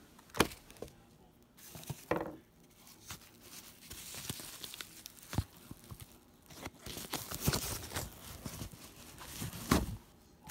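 Bubble-wrap packaging being handled and unwrapped: a crinkling, rustling noise that lasts several seconds. A few sharp knocks come with it, the loudest about half a second in and near the end.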